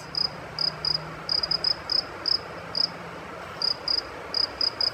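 A cricket chirping: short high chirps, singly and in quick runs of two to four, at uneven intervals, over a faint low hum.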